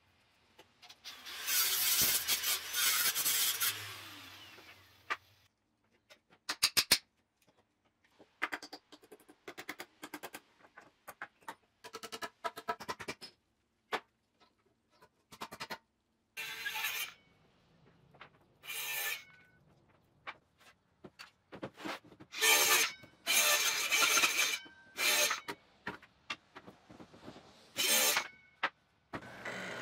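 Angle grinder cutting through the nails that hold pallet boards together, in a string of cuts from a fraction of a second to a few seconds long, each starting and stopping abruptly.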